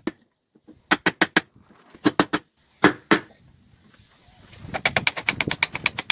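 A series of sharp knocks in quick groups of three or four, then a faster run of taps near the end.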